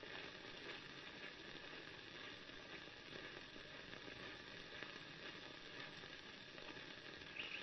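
Faint, steady hiss of an old recording's background noise, with no distinct events.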